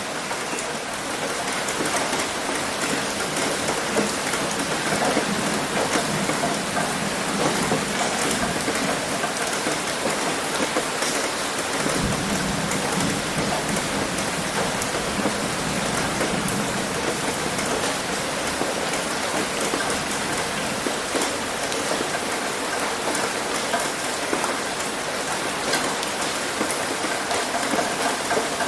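Heavy rain hitting a roof: a dense, steady patter of many separate drops, with a brief low rumble about twelve seconds in.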